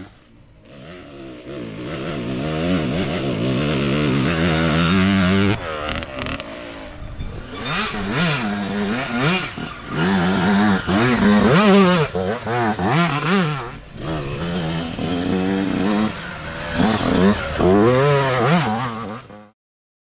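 Youth dirt bike engines revving as riders come past, pitch rising and falling with throttle and gear changes. The sound dips about a second in, then grows louder as the next bike approaches. It cuts off suddenly near the end.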